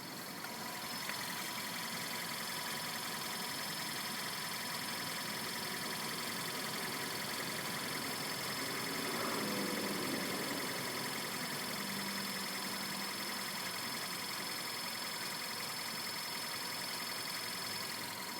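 Skoda Yeti engine idling, heard at the front passenger side by the water pump, with a steady high-pitched whine and a fast fine ticking over it: the abnormal noise the owner puts down to the water pump, which has come back after the pump was replaced.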